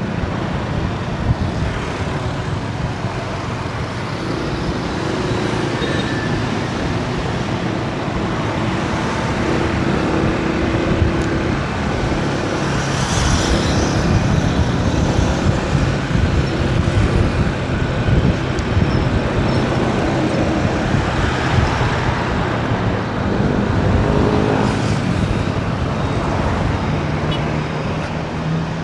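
Steady road traffic: motor vehicle engines and tyre noise running continuously, with the engine pitch shifting as vehicles pass.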